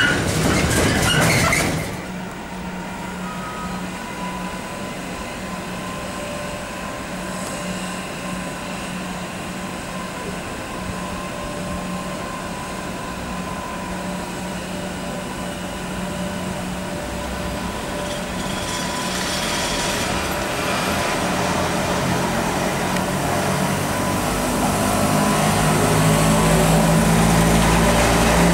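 Container wagons rattle past on the rails, cut off abruptly about two seconds in. Then a quieter steady hum with a thin whine, growing louder from about midway as a Freightliner Class 86 electric locomotive approaches, its motors humming loudly as it draws close near the end.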